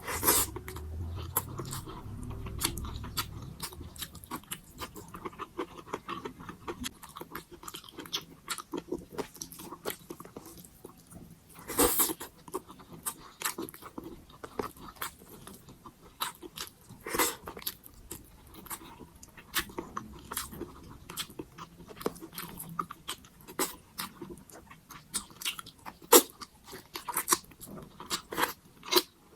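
A person eating close to the microphone, mukbang-style: steady wet chewing and mouth clicks, with several louder bites or crunches.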